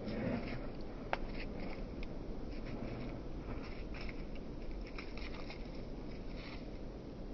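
Irregular soft scuffs and rustles from Cane Corsos moving about on dry dirt and grass, with one sharp click about a second in, over a steady low rumble.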